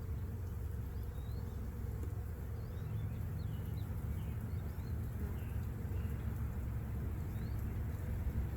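Honey bees buzzing in a steady hum around an open hive, over a low rumble, with faint short chirps now and then.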